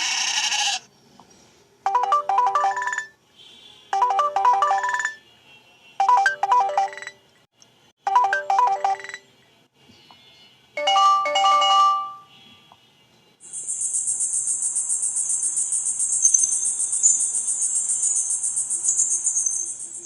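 Phone ringtones from a Samsung Galaxy J2 on the Viper OS custom ROM, played one after another. A short chime phrase repeats four times, about every two seconds. A different chime sounds about eleven seconds in, then a high, rapidly pulsing electronic trill runs from about thirteen seconds on.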